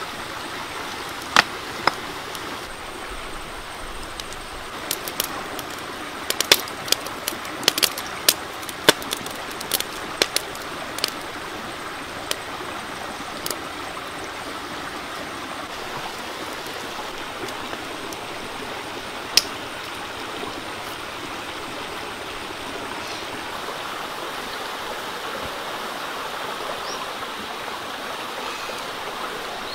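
Pot of sour fish soup at a rolling boil: a steady bubbling hiss, with a scatter of sharp pops and crackles through the first dozen seconds and one more later on.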